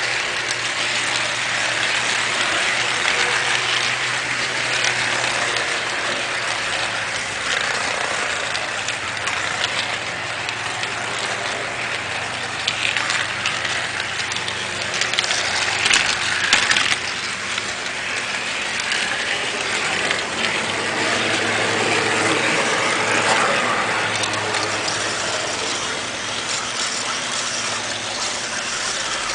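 Model railroad train running along the track: a steady rolling rattle of small wheels on rail, with a low motor hum and scattered clicks.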